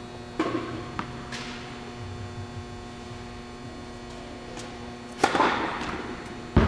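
Tennis ball struck by a racket, a loud crack about five seconds in and another near the end, each ringing out in the echoing indoor court hall; a lighter thud of the ball being bounced comes about half a second in. A steady electrical hum sits underneath.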